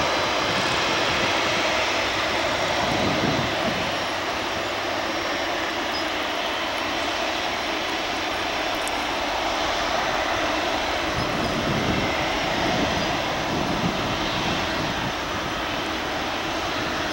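Jet engines of a Southwest Airlines Boeing 737 at takeoff power on departure, a steady jet noise that eases slightly after a few seconds.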